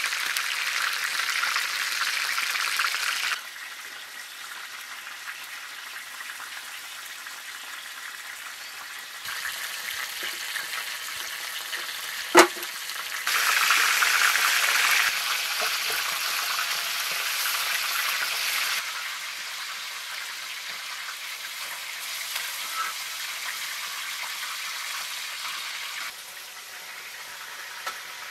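Chicken pieces frying in hot oil: a steady sizzle that jumps between louder and quieter stretches, loudest at the start and again while the pieces are turned with a metal ladle. A single sharp clink comes about twelve seconds in.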